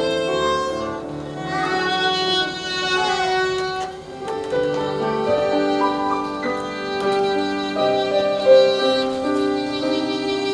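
Violin music: a slow melody of long held notes with vibrato.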